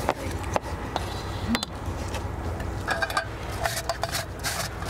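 A few knife taps on a cutting board as tomatoes are diced. About three seconds in, a tomato starts being rubbed on a box grater in rasping strokes, about two a second.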